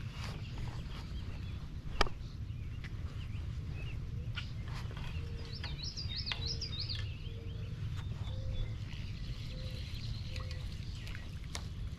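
Outdoor ambience: a steady low rumble with birds calling, a run of quick up-and-down whistled notes about halfway through and a string of short low notes after it. One sharp click about two seconds in.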